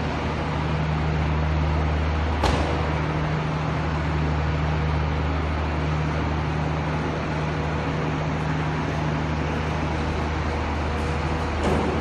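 Small petrol engine of a walk-behind power trowel running steadily, a low even drone, with one sharp click about two and a half seconds in.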